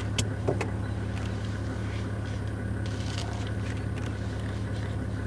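Vehicle engine running steadily with a low hum, with two sharp clicks within the first second.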